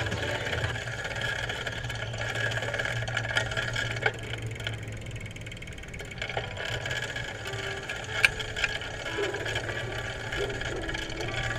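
Steady rolling noise of a bicycle being ridden on a paved street, tyres and drivetrain, with a sharp click or rattle about four seconds in and a louder one about eight seconds in.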